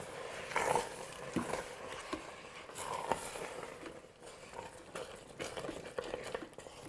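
A spatula stirring thick, cheesy risotto in the stainless-steel inner pot of an electric pressure cooker, making soft, irregular scrapes and knocks against the pot.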